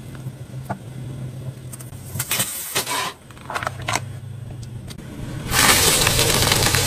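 A car engine hums at a low idle while a tyre rolls onto a plastic bottle packed with small round balls. The plastic crackles and pops under the weight. About five and a half seconds in, a much louder dense crackling hiss starts.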